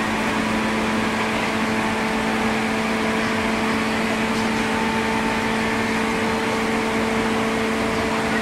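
Steady hum inside a JR 103-series electric train carriage: its onboard equipment running with two steady tones over an even whir, with no change in pitch.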